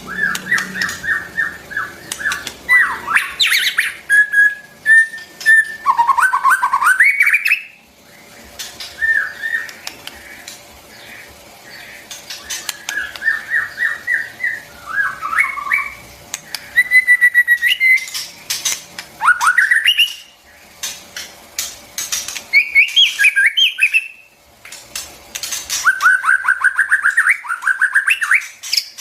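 White-rumped shama singing: loud, varied phrases of clear whistled notes and fast runs of repeated rising notes, broken by short pauses, with a few sharp clicks between phrases.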